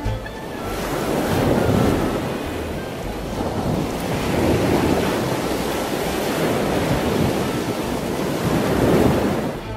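Ocean surf breaking on a beach: a steady rush of waves that swells and eases about three times.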